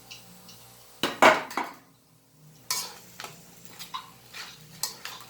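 Kitchen utensils and cookware clattering: a loud clatter of metal against a pot or pan about a second in, then a run of lighter clinks and knocks, as of a utensil working in the pot.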